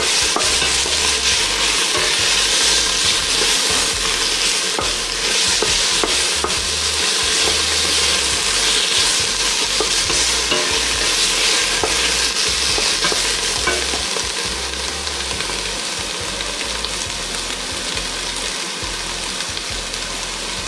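Sliced onions sizzling and frying in a hot stainless steel pot while a wooden spatula stirs and scrapes them; the onions are being sweated. The sizzle eases a little over the last few seconds.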